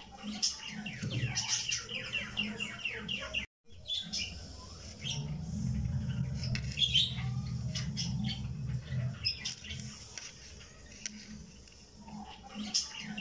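Birds chirping in runs of quick falling notes near the start and again near the end, with a low hum for a few seconds in the middle. The sound cuts out completely for a moment about three seconds in.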